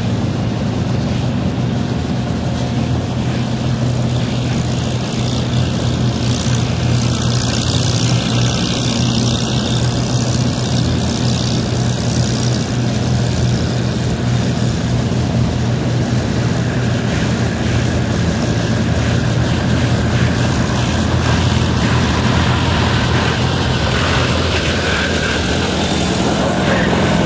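An engine running steadily at a constant speed: a low, even drone with a hiss over it.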